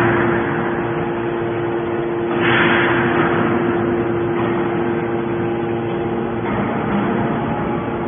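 Hydraulic metal baler running with a steady multi-tone hum from its motor and hydraulic pump as it compresses stainless steel shavings. A louder rushing surge comes about two and a half seconds in.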